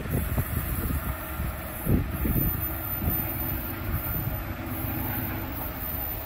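A train rumbling past and dying away, with wind buffeting the phone's microphone.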